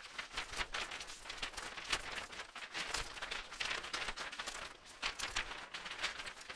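Intro sound effects: a dense, irregular run of noisy crackles and whooshes, with a low thud about three seconds in.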